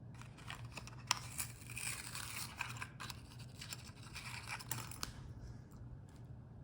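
Needle-nose pliers scraping, crunching and clicking against plastic and metal faucet parts for about five seconds, then stopping, over a low steady hum.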